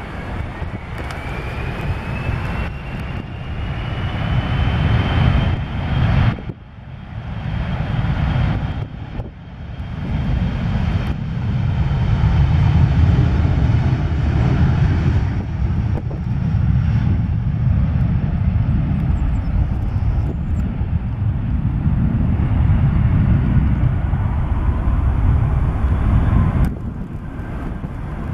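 Jet airliner engines running with a heavy, loud rumble. Over the first few seconds a turbine whine rises in pitch. The sound changes abruptly several times where separate aircraft clips are cut together.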